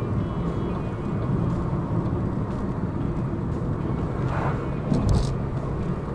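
A car driving, heard from inside the cabin: steady low rumble of engine and road noise, with a brief louder swell about four to five seconds in.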